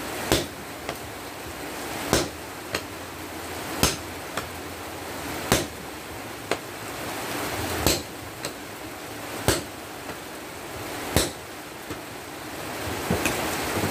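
Two-man hand forging of a red-hot steel bar cut from an excavator breaker chisel: seven heavy sledgehammer blows on the anvil, just under two seconds apart, each followed by a lighter tap from the smith's hand hammer. Near the end the blows stop and a steady rushing noise grows louder.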